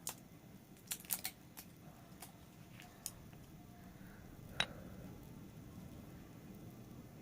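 A small plastic package of glitter being opened by hand: a string of irregular, sharp clicks and snaps, the loudest a little past halfway.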